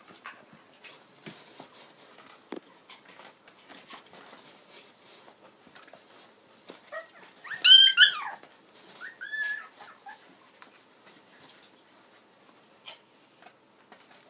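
A dog whimpering: one loud, high-pitched whine that bends up and down about eight seconds in, and a shorter, fainter one a second later, over faint scattered clicks and taps.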